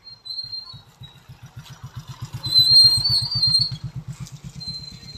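An engine running with a rapid, even beat, loudest around two to four seconds in, with thin high tones above it.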